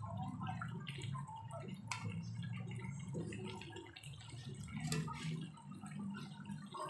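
Chicken and coconut milk bubbling in a wok, being cooked down until the coconut milk's oil separates, while a spoon stirs through it. A few sharp clicks from the spoon against the pan, the clearest about two and five seconds in.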